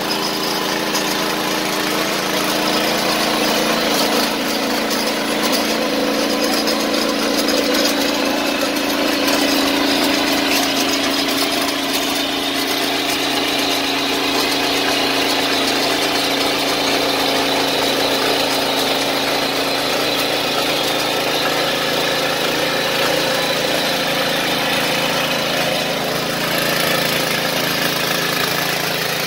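An engine running steadily at a constant, idle-like speed.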